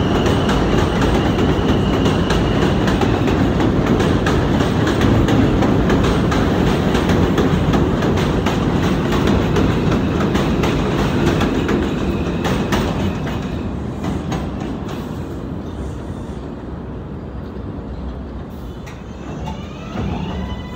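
R142A New York subway train running at speed, its wheels clattering over the rail joints in a heavy rumble. About halfway through the noise begins to fade as the train slows into the station. Near the end a short whine glides in pitch.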